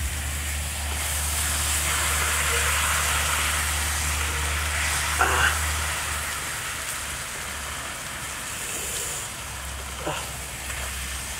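Bee comb frying in hot oil on a flat metal pan, sizzling steadily, fuller in the first half and easing later. A metal spatula scrapes or knocks on the pan briefly about halfway through and again near the end.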